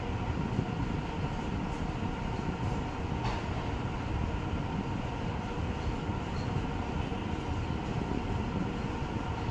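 Steady low rumbling background noise with a faint hum.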